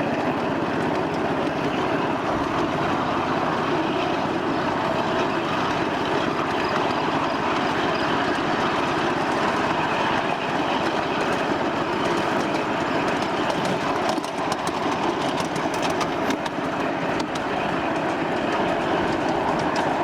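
Wheels of a 1/8-scale ride-on miniature train rolling along the track: a steady running rumble with scattered clicks, thicker in the second half.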